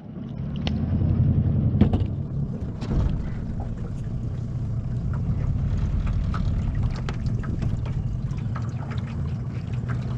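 Boat motor running steadily under way, building up over the first second or two, with scattered light knocks and clicks over it.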